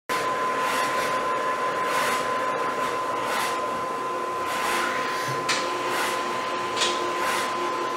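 Projet 660 full-colour powder 3D printer running: a steady fan-like rush with a constant high whine, and a swish roughly every second and a bit.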